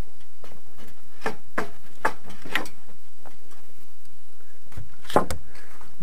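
A few irregular wooden knocks and clicks as a man shifts about on wooden scaffolding planks; the sharpest pair comes about five seconds in.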